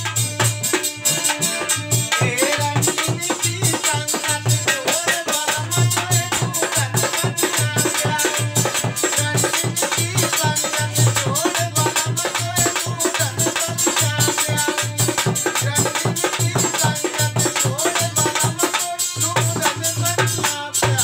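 Live Rasiya folk music: a dholak beats a fast rhythm, its deep strokes dropping out for stretches, while a chimta's metal jingles rattle along and a harmonium carries the melody.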